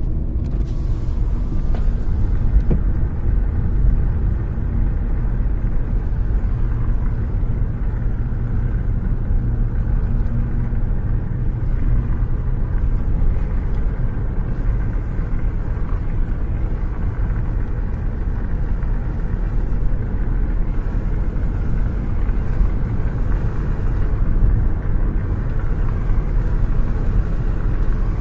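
A car cruising at a steady speed, heard from out of its open window: a steady low rumble of wind and road noise.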